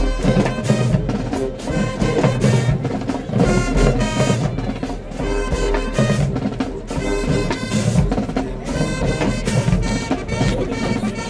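High school marching band playing, with brass horns over a driving drumline beat.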